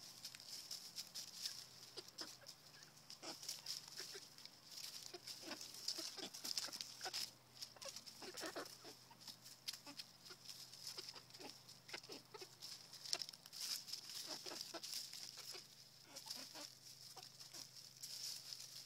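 Backyard hens clucking softly now and then while pecking at sliced tomatoes, with many short taps and clicks of beaks. A steady high-pitched hiss runs underneath.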